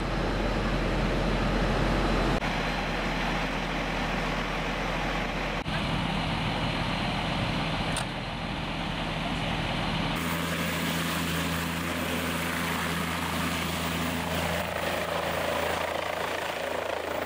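Steady outdoor rumble at a roadside scene, then from about ten seconds in the steady hum of an air-ambulance helicopter's turbine and rotor as it lifts off.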